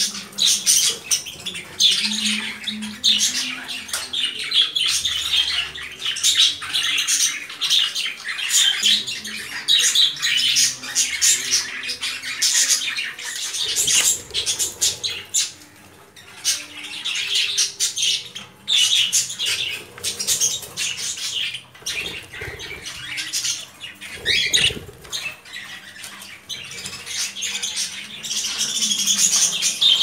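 Pet cockatiels and budgerigars chirping and squawking in a near-continuous stream of short high calls, with a couple of brief lulls in the middle.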